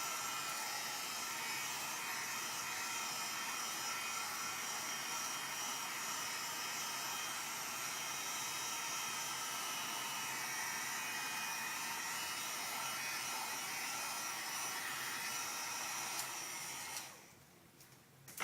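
Heat gun blowing steadily, turned up a little to finish shrinking shrink-wrap film; it is switched off about a second before the end, and a short knock follows right at the end.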